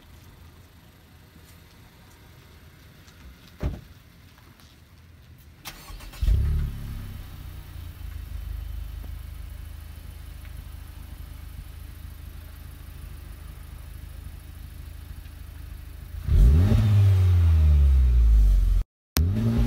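2019 Honda Civic Type R's 2.0-litre turbocharged four-cylinder, heard through its stock triple-outlet exhaust. It starts about six seconds in with a brief surge, then idles low and steady, and is revved repeatedly near the end, the pitch climbing and falling. A single sharp knock comes a few seconds before the start.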